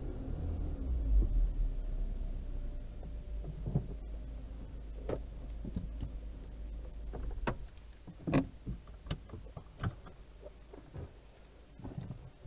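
Car engine heard from inside the cabin, running low as the car rolls slowly to a stop and fading down. From about five seconds in, scattered sharp clicks and taps.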